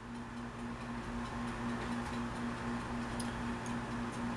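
Faint, irregular ticking over a steady low hum that pulses a few times a second, with background hiss.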